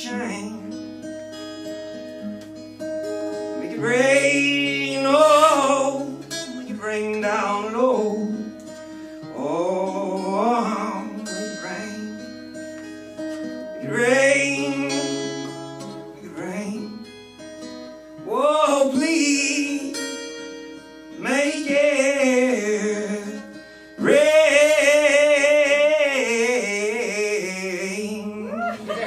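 A man singing with long held notes over his own acoustic guitar. His voice swells into a loud, sustained note for the last few seconds.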